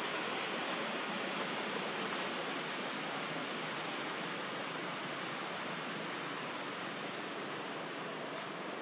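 Steady, even hiss of outdoor background noise, with a few faint ticks and a brief high chirp about five and a half seconds in.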